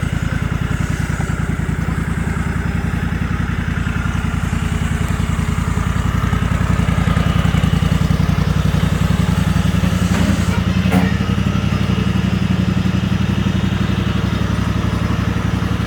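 Engine of the vehicle backing a trailer, running steadily at low speed with an even pulse, picking up a little about ten seconds in; a light click about eleven seconds in.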